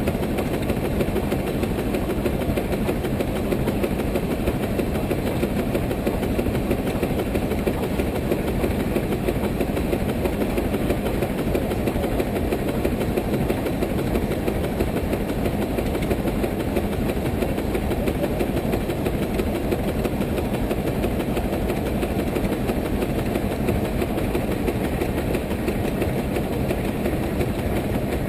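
110 hp Case steam traction engine running steadily with a rapid, even exhaust beat from its stack, working against a belt brake.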